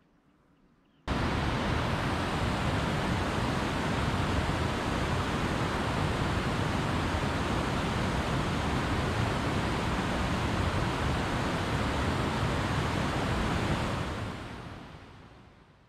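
Steady rushing water of a snowmelt stream, starting abruptly about a second in and fading out near the end.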